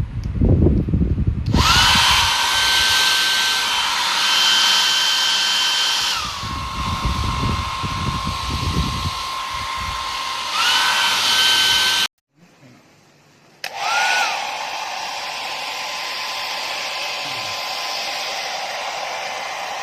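Kadonio 800W hair dryer running, with rushing air and a motor whine. The whine drops in pitch about six seconds in and rises again around ten seconds. The dryer cuts off about twelve seconds in and starts again a second and a half later, its whine rising briefly and then settling low. Low rumbles come at the start and again around seven to nine seconds.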